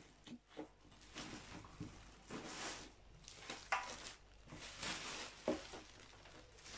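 Clear plastic packaging crinkling and rustling as a wrapped plastic trolley basket is handled and lifted out of a cardboard box, with a few light knocks.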